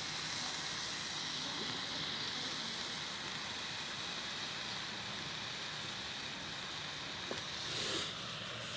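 Shredded cabbage sizzling and steaming in a large metal kadhai over a wood fire, a steady hiss that swells briefly near the end.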